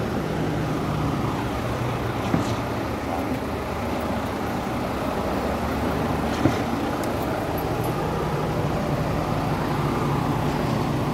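Heavy vehicle engine idling, a steady low drone, with a couple of faint knocks.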